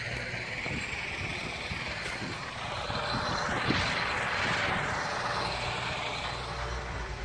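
A passing aircraft's distant rushing noise, swelling to a peak about four seconds in and then fading, over a steady low hum.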